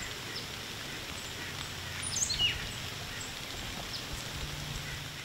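Scattered small bird chirps over a steady background hiss, with a quick run of high, falling chirps about two seconds in.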